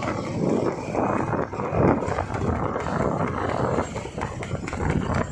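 Horse-drawn tanga cart racing on an asphalt road, the horse's hooves clattering, mixed with the continuous rushing noise of motorbikes and road traffic running alongside.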